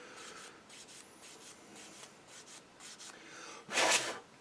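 Sanding stick rubbed back and forth over the edge of a plastic model-kit part, a run of light repeated scraping strokes as a seam line is sanded flat. About four seconds in comes one short, louder rush of noise.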